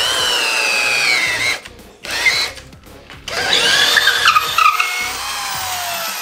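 Half-inch corded drill with a speed bore spade bit boring through a pressure-treated 4x4, its whine sagging in pitch under load before it stops about a second and a half in. After a short pause the drill runs again with some rattling as the bit comes out of the hole, then winds down with a slowly falling whine.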